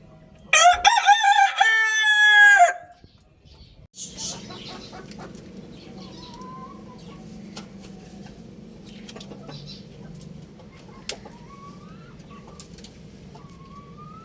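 A rooster crows once, a loud call of about two seconds near the start. After it, faint whistling bird calls over a low steady background.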